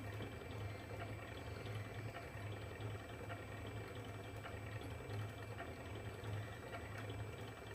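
Brushless motor of a homemade coil-winding machine running steadily, spinning the spindle as enamelled copper wire is wound onto a coil. It gives a low hum that pulses evenly, with a light whirr over it.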